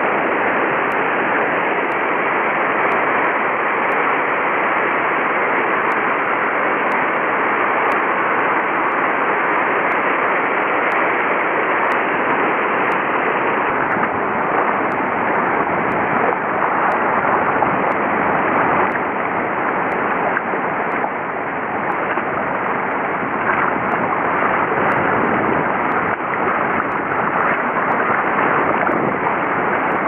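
Para Falls on the Caura River pouring in flood: a steady, even rushing of falling water, with a brief dip in loudness a little past two-thirds of the way through.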